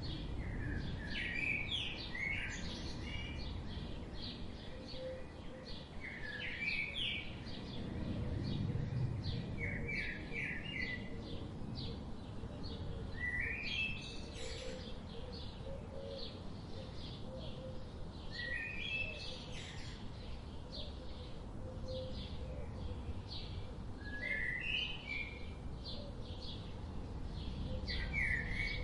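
Birdsong: one bird repeats a short phrase every four to five seconds, with many quick chirps from other birds in between, over steady low background noise.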